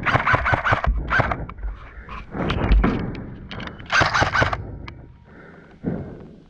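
Airsoft gun firing several short rapid bursts, sharp cracks about seven or eight a second, with pauses between the bursts.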